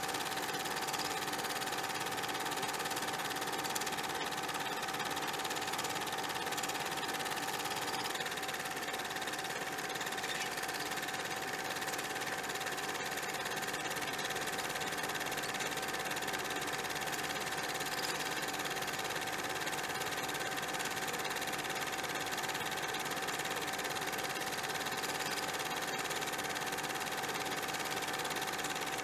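Steady hiss with a constant hum-like tone and no music or speech: background noise on a silent film's soundtrack.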